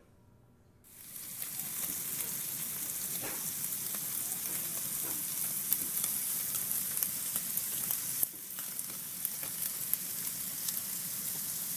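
Food sizzling and crackling in hot oil, a steady frying hiss with fine pops, starting about a second in and dipping briefly just past eight seconds.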